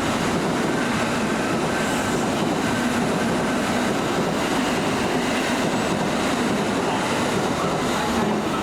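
Kintetsu electric commuter train running alongside the station platform, its wheels on the rails making a steady, even noise.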